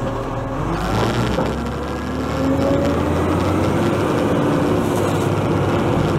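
Side-loading garbage truck's diesel engine accelerating as the truck pulls away from an emptied bin, its pitch climbing about two seconds in and then holding steady.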